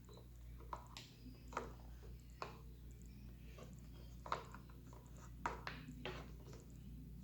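Faint, scattered clicks and scrapes of hard plastic toy parts being handled, a small toy gun being fitted into a slot on a plastic speeder bike.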